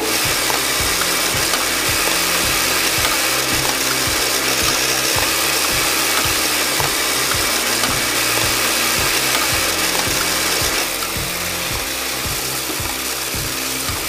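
Background music with a fast repeating bass line under a dense, hissing upper layer.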